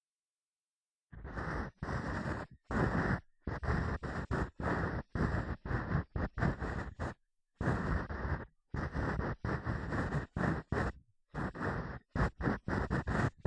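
Earpick scraping close to the microphone in ear-cleaning ASMR: a rapid series of short scratchy strokes, starting about a second in, each cut off by a brief silence.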